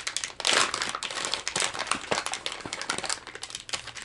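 Crinkling of a PowerBait soft-plastic bait pouch being opened and handled: a dense run of crackles, loudest about half a second in, that stops abruptly near the end.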